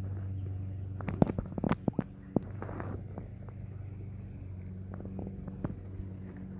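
A steady low hum, with several sharp taps and knocks between about one and two and a half seconds in.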